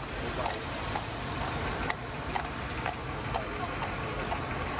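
Outdoor city ambience: a steady low hum of traffic and crowd with scattered sharp clicks and taps.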